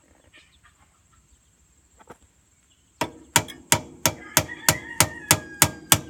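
About ten quick hammer blows, roughly three a second, beginning about halfway through, on the press-fit water outlet neck of a Nissan H25 generator engine, each with a short ring. A rooster crows faintly in the background near the end.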